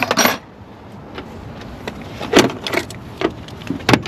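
Metal hand tools clinking and clattering as they are picked up and set down, in a quick cluster at the start and then a few separate knocks over the next few seconds.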